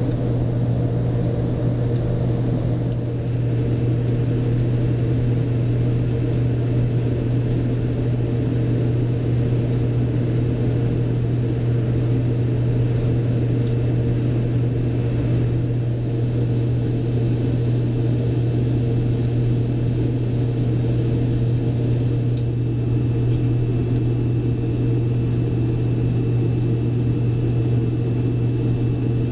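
Steady low drone of a Boeing 787-9's cabin in flight on descent: engine and airflow noise, with a faint high whine setting in about three seconds in.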